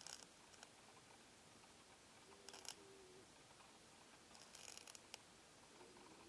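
Faint, crisp rasping strokes of a land snail's radula scraping the surface of a leaf as it feeds: a Sought-after False Hadra (Euhadra quaesita) grinding at a Schizophragma hydrangeoides leaf. There are a few short scrapes, one near the start, one in the middle and a small cluster later on.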